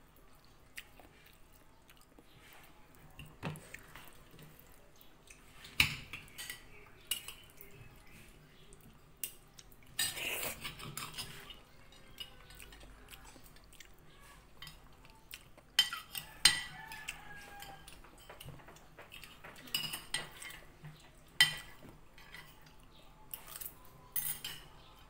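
Spoons and forks clinking and scraping against plates as children eat rice and curry, in scattered irregular clicks with a few sharper knocks.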